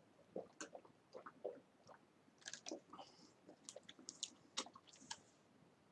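Faint mouth sounds of a man drinking water from a plastic bottle to wash down a piece of raw garlic: soft gulps and swallows with a scatter of small, irregular clicks.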